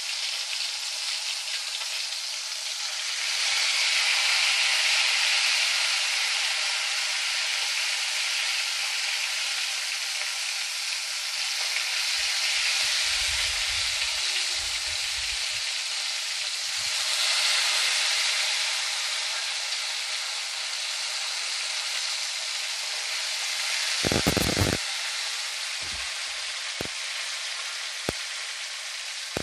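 Masala-coated chicken pieces sizzling as they fry in hot oil, a steady hiss that grows louder a few seconds in. A few dull thuds come about halfway through, and a sharp knock comes near the end.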